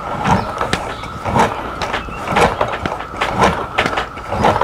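Repeated short clicks and knocks, one to two a second, from the spring head of a manual Carefree RV awning as its spring tension is let off by hand with locking pliers.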